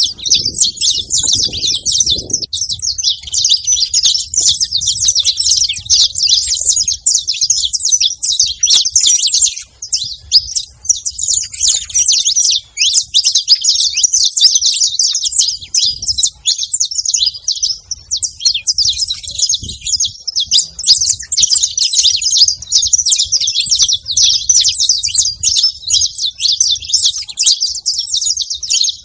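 A flock of saffron finches chirping, many high-pitched calls overlapping in a dense, unbroken chatter.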